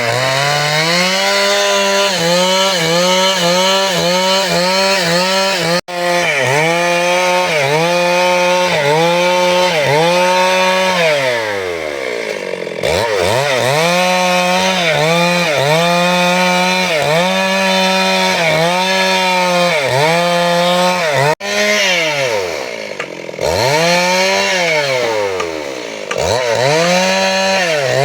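Chainsaw engine running at high revs while cutting wood, its pitch sagging and recovering over and over as the chain bites. Three times the throttle is let off and the engine winds down before revving up again.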